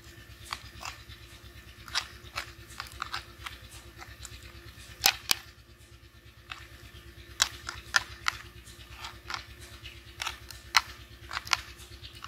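Metal spoon stirring a thick yogurt and spice marinade in a clay bowl, clicking and scraping against the bowl's sides in short, irregular knocks, the sharpest pair of clinks about five seconds in.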